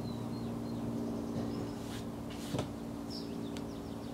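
Steady low machine hum with a few brief bird chirps, and a single short knock about two and a half seconds in.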